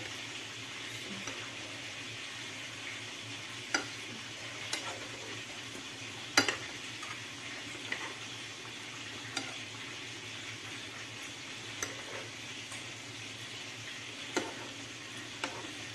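Chicken and pineapple slices sizzling in sauce in a frying pan, with a metal spoon clinking against the pan now and then as the sauce is spooned over the meat. The loudest clink comes about six seconds in.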